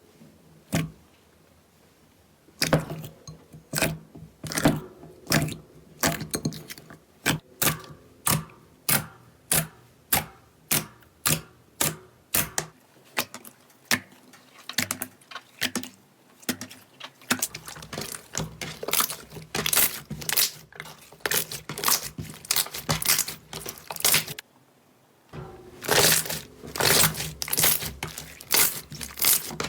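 Slime being pressed and squeezed by hand, giving a long run of sharp pops and clicks about two to three a second, with a short break near the end.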